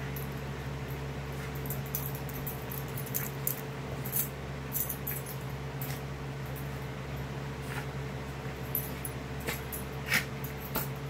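A miniature pinscher and a cat play-fighting on a fabric couch: scattered short scuffles and clicks with brief dog noises, the sharpest about ten seconds in, over a steady low hum.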